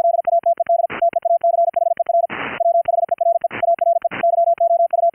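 High-speed Morse code (QRQ CW) from an Elecraft K3S transceiver: a single steady tone keyed on and off in rapid dots and dashes, with short bursts of hiss breaking in several times.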